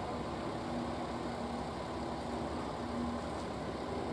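Diesel railcar's engine idling as a steady low rumble with a faint hum while the car turns slowly on a turntable.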